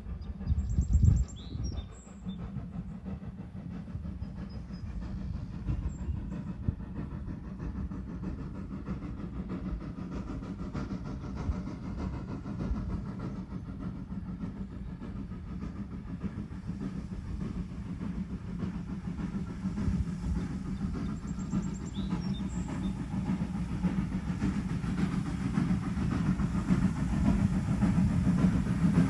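A train running on the rails, a steady low rumble that builds louder toward the end.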